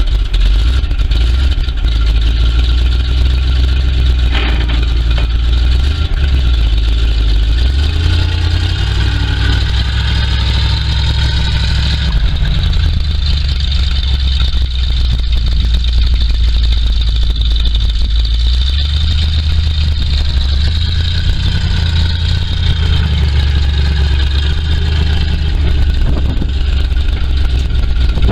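Big-block 427 cubic-inch gasoline V8 of a 1979 Chevrolet C60 grain truck idling steadily.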